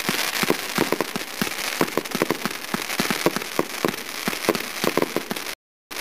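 P7663 Indian Ocean aerial fireworks bursting overhead: a dense, continuous crackling peppered with many sharp pops and bangs. The sound cuts off suddenly near the end.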